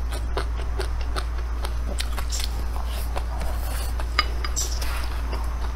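A wooden spoon scraping and clinking against a ceramic bowl of fried rice, with close-up chewing and many small mouth clicks, one sharper click a little after four seconds in. A steady low hum runs underneath.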